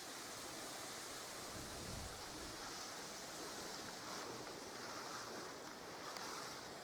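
Steady rushing wind, with a low buffet of wind on the microphone about two seconds in.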